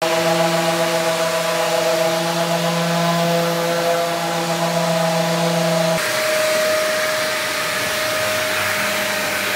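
Electric sanders running steadily with a dust extractor drawing through their hoses, a constant whine over rushing air. The pitch changes abruptly about six seconds in, where a different tool takes over.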